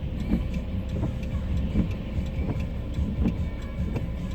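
Inside a moving car in the rain: steady road and tyre rumble, with a faint steady hum and irregular light ticks throughout.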